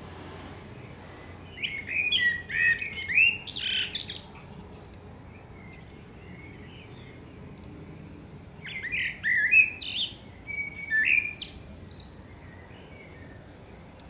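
Male Eurasian blackbird singing two song phrases about six seconds apart, each a low fluting warble that ends in a high, squeaky twitter.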